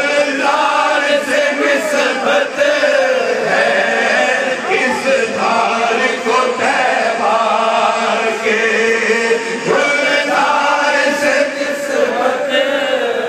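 Men's voices chanting a naat, an Islamic devotional poem, together in long held lines.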